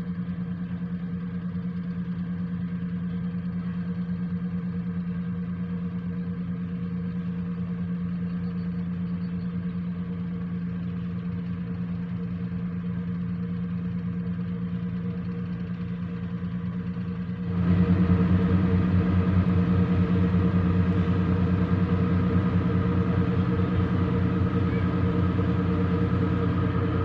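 Boat diesel engine running steadily with a low, even drone, which steps up louder about two-thirds of the way through.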